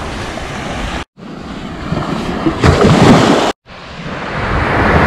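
Small waves breaking and washing up a sandy beach, with wind gusting on the microphone. The sound drops out briefly twice.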